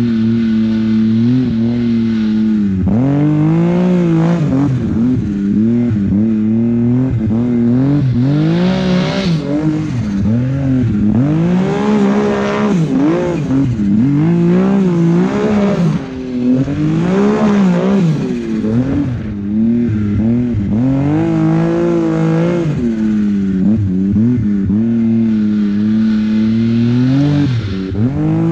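Two-stroke mountain snowmobile engine revving up and down over and over as the sled weaves through deep powder, the pitch climbing and dropping every second or two with a brief let-off about halfway through.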